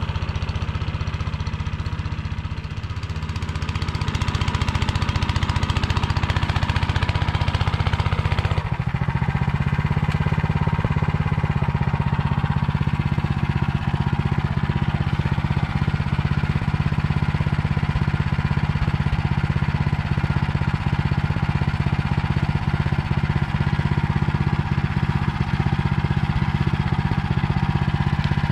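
Walk-behind tractor engine running steadily while pulling a reversible plough through the soil, its sound shifting about nine seconds in.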